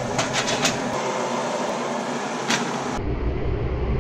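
Metal kitchen tongs clinking against the pot and sheet pan as steamed crabs are lifted out: a quick run of about four clicks in the first second and one more about two and a half seconds in, over a steady rushing background noise.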